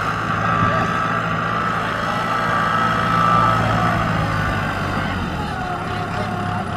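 Kubota M6040SU tractor's diesel engine running steadily as the tractor drives through wet paddy mud, with a high whine over it that drops in pitch about five seconds in.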